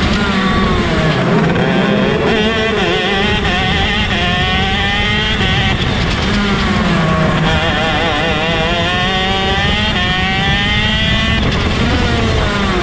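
Onboard sound of a two-stroke 125cc shifter kart engine racing: its pitch climbs through each gear and drops back at each shift, several times, with other karts' engines running close by.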